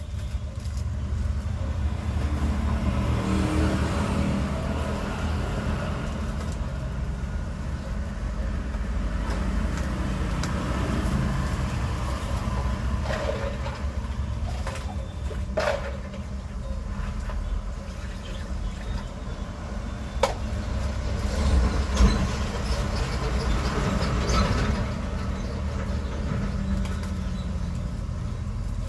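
Road traffic going by: a steady low rumble of vehicles that swells and eases several times, with a few sharp clicks about 15, 20 and 22 seconds in.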